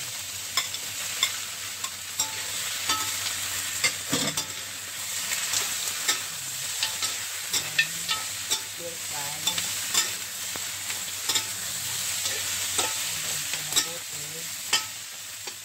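Beef short ribs and sliced onions sizzling in hot oil in a steel wok as they are stir-fried, with a metal spatula repeatedly clinking and scraping against the pan.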